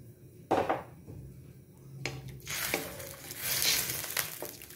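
A short knock about half a second in, then a wooden spatula stirring and scraping through soy-sauce broth in a stainless steel wok, from about two seconds in.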